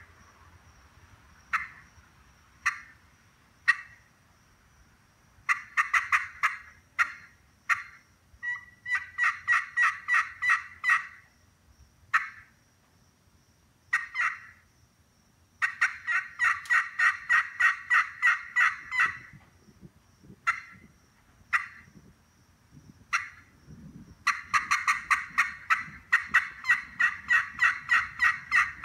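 Turkey pot call with a glass playing surface in an ambrosia maple pot, worked with a striker. It gives a few sharp single clucks, then several fast runs of yelps at about four notes a second, with pauses between the runs.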